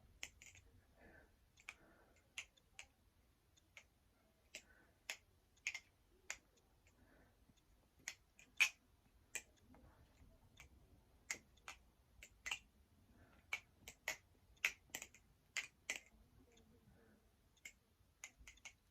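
Kraken Bowie balisong (butterfly knife) being flipped: a string of sharp, irregular clicks, one to three a second, as the handles swing around and strike the blade's stop pins.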